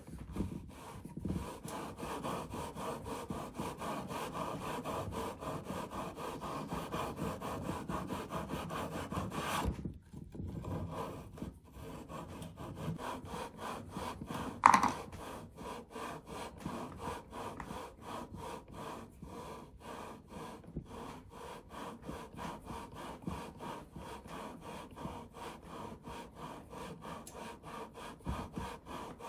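Scope-ring lapping tool worked back and forth through rings coated with lapping compound: a steady, gritty rubbing of metal on metal, stroke after stroke, as the rings are lapped aggressively toward full contact with the scope tube. The strokes break off briefly about ten seconds in, and a sharp metallic clink rings out about fifteen seconds in.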